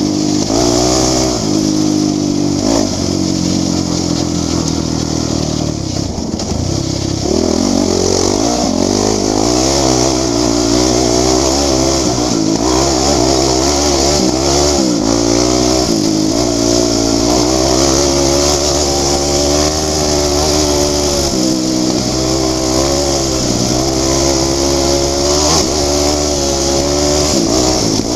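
Quad (ATV) engine running hard under way on a rough dirt track, its pitch rising and falling over and over as the throttle opens and closes.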